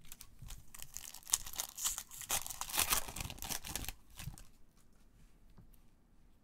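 Shiny foil wrapper of an Upper Deck Vibranium Marvel trading-card pack being torn open and crinkled by hand, a crackling rip that is loudest in its last second or so and stops about four seconds in, followed by a few faint clicks of cards being handled.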